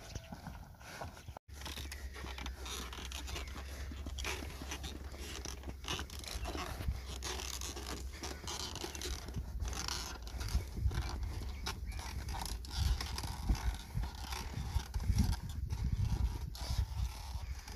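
A bull pulling a loaded wooden bullock cart along a dirt track: irregular hoof falls and knocks and creaks from the cart, over a steady low rumble that begins after a short break about a second and a half in.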